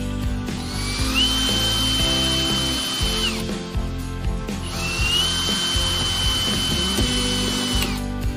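Parkside PFS 710 D3 electric reciprocating saw run twice, each time whining up to speed, holding a steady high pitch for two to three seconds, then winding down. Background music plays underneath.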